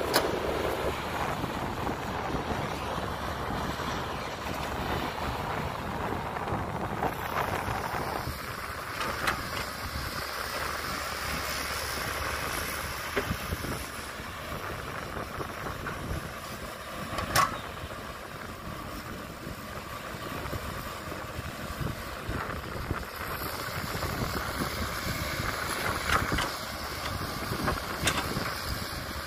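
Diesel engine of a Caterpillar tracked hydraulic excavator running steadily as it digs and loads earth, with a sharp knock a little over halfway through.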